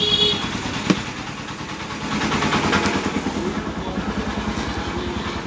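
A steady, evenly pulsing low throb of an idling engine, with a single click about a second in.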